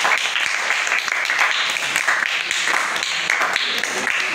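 A group of children clapping, with children's voices chattering over it.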